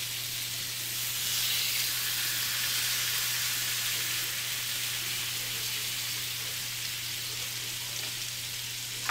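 Marinated tilapia fillets frying in butter on a hot flat griddle pan (tawa), a steady sizzle that grows louder about a second in as more fish goes into the pan, then eases slightly. A steady low hum runs underneath.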